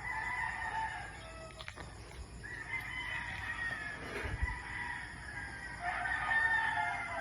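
Several roosters crowing, their long calls overlapping one another in waves, with a few hens clucking: the dawn chorus of neighbourhood roosters.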